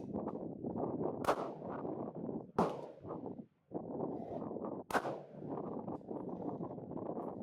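Three rifle shots at a shooting range, sharp cracks about a second in, at about two and a half seconds and at about five seconds, each with a short ringing tail. Heavy wind buffeting on the microphone runs underneath.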